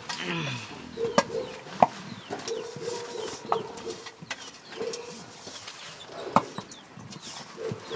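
A wooden stick stirring maize-flour dough in a blackened pot over a wood fire, knocking sharply against the pot a few times at irregular intervals.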